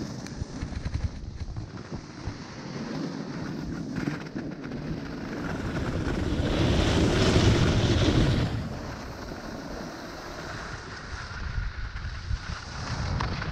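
Wind rushing over a GoPro's microphone during a descent of a groomed ski run, with the scrape of edges sliding over the snow. It swells louder for about two seconds in the middle.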